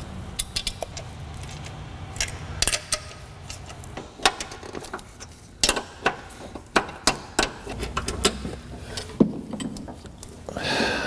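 Metal hand tools and parts clinking and clicking at an irregular pace during work in a car's engine bay, a few strikes ringing briefly, over a low steady hum.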